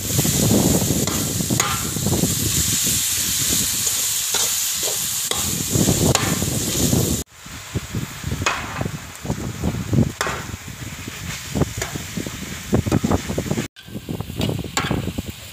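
Sliced beef and aromatics sizzling in a large wok while a metal spatula scrapes and stirs them, with many short scrapes against the pan. The sound cuts off abruptly twice, and the sizzling is quieter after the first break.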